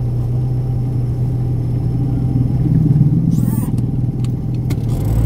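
Steady car engine and road drone heard from inside the cabin, swelling a little about halfway through as the car moves off from the junction. A short noise burst and a few faint clicks come near the end.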